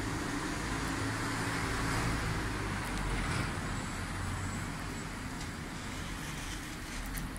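Steady distant road-traffic noise: an even rush with a low drone underneath, easing slightly toward the end.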